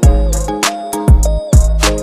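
Background music with a steady beat: deep bass hits and sharp drum strikes about twice a second under sustained chords.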